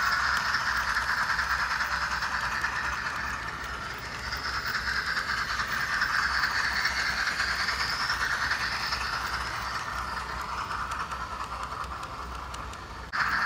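Sound decoders (LokSound 4, running a C11 steam sound program) in a double-headed pair of HO-scale model steam locomotives, a KATO C56 and a Tramway C12, playing a steam locomotive's running sound of chuffing exhaust and steam hiss through their small onboard speakers, steady throughout.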